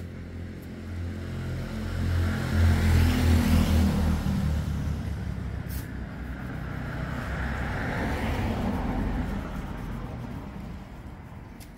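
A motor running steadily. It swells louder about two to four seconds in and again around eight to nine seconds, then fades toward the end.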